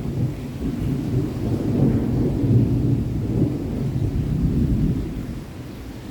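Distant thunder rumbling low and long over steady rain, the rumble easing off near the end.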